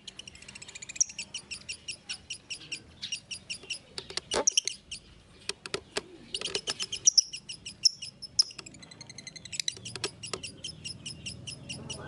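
Lovebird chattering: long runs of quick, high chirps, about eight to ten a second, broken by short pauses, with a few sharp clicks in the middle.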